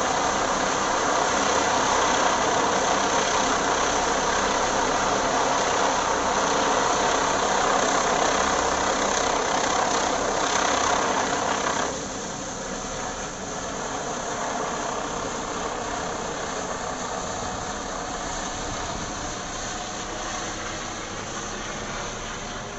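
Helicopter turbine and rotor noise as the helicopter passes overhead and climbs away: a steady whine and rush over a low throb. About halfway through the sound drops suddenly to a lower, more distant level.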